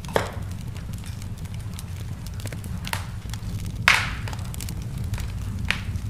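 Wood fire crackling in a fireplace: scattered sharp pops and snaps over a steady low rumble, with the loudest pop about four seconds in.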